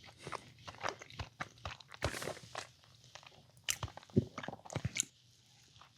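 Close-up chewing and mouth smacks of someone eating a peanut butter and jelly sandwich: irregular clicks and bites, pausing briefly twice.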